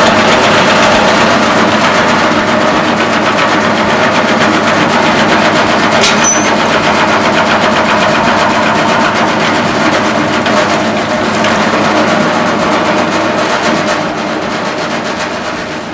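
Meat mincer attachment driven by a bandsaw's electric motor, starting abruptly and running steadily while mincing meat: a loud, dense, rapid clatter over a steady hum. There is a brief high squeak about six seconds in, and the sound dies away near the end.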